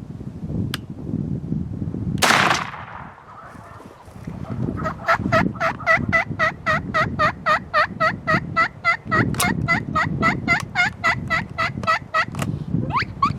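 A single sharp blast, likely a shotgun shot, then wild turkeys, probably Merriam's, calling in a long, rapid run of repeated yelping notes, about four or five a second.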